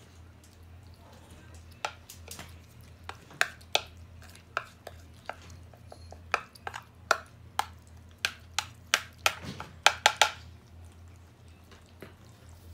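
Spoon tapping and scraping against a plastic bowl while wet cat food is spooned out, a run of sharp, irregular clicks that comes thickest near the end.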